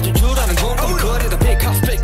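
Hip hop track playing, with rapped vocals over a heavy bass line and a steady drum beat.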